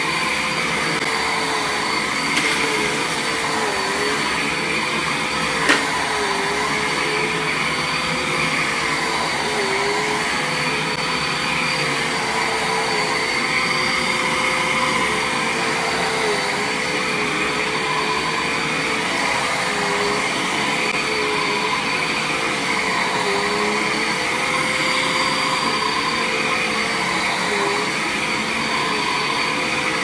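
Upright vacuum cleaner running steadily on carpet, its motor tone dipping briefly every couple of seconds, with one sharp click about six seconds in.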